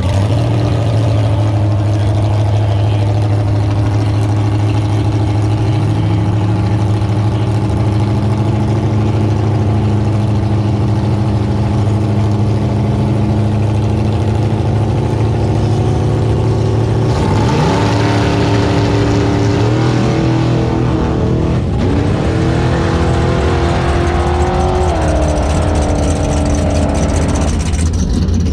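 Drag-race car engine held at a steady high rumble at the starting line, stepping up in pitch about six seconds in. Near two-thirds of the way through it launches and accelerates hard down the strip, rising in pitch and dropping back at each gear change three or four times before fading away.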